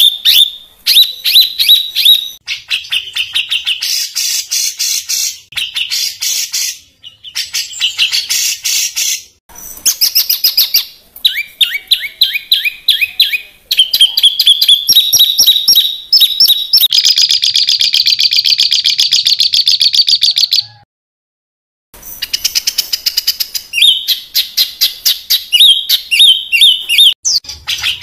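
Songbird singing a fast, harsh run of rapidly repeated chips and trills, the rough 'tembakan' (shot) phrases used to tutor cage birds. It comes in abrupt segments, with a silent break of about a second roughly three quarters of the way through.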